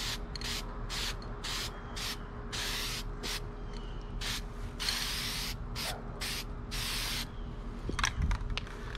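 Aerosol spray-paint can (Rust-Oleum High Heat) hissing in more than a dozen short bursts, a few of them held longer, as a coat of paint goes on; the spraying stops about seven seconds in, followed by a few light clicks.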